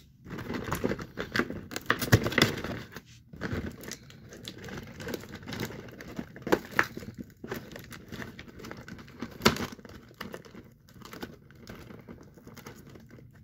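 Cardboard box of a toy train track set being opened by hand: irregular tearing, crinkling and rustling of the packaging, with the sharpest rips about two seconds in and again past nine seconds.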